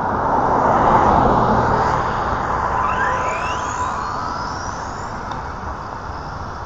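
A vehicle passing: a rush of tyre and motor noise that swells to a peak about a second in and then slowly fades. A thin whine rises sharply in pitch around the middle.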